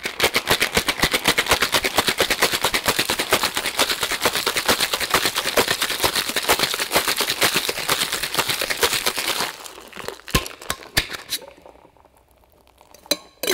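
Ice rattling hard inside a stainless steel two-tin cocktail shaker, shaken fast and evenly for about nine seconds. The shaking then stops, and a few sharp metal knocks follow as the shaker is knocked open.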